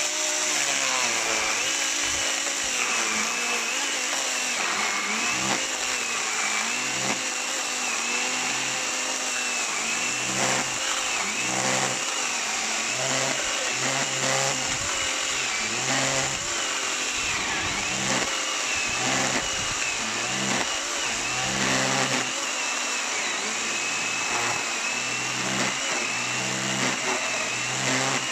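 Parkside PKSA 20-Li B2 20 V cordless electric chainsaw cutting through a thick log, under heavy load. The motor's whine keeps dipping in pitch and recovering as the chain bogs in the wood.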